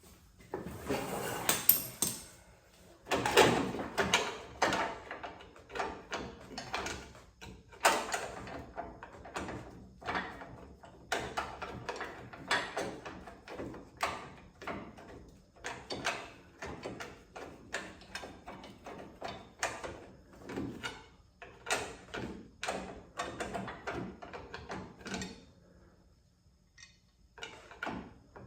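Irregular clicks, clanks and scrapes of hand work on a car's door hinges and their bolts, with a short pause near the end.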